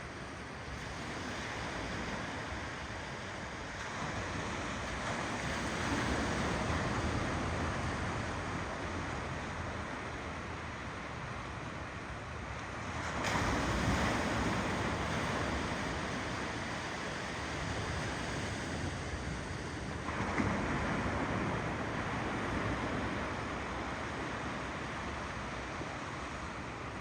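Ocean waves rolling in and washing on the shore, a steady rush that swells every several seconds, the biggest surge about 13 seconds in.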